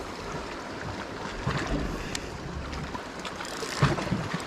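Sea water washing and sloshing against the rocks, with wind on the microphone.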